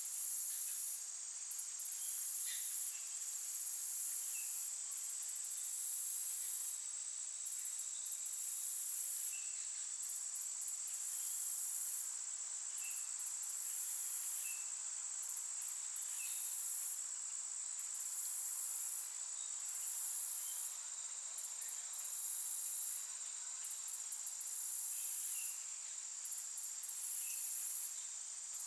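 Insect chorus: a very high-pitched trilling that comes in pulses of a second or two with short breaks, over a steady high drone, with a few faint short chirps.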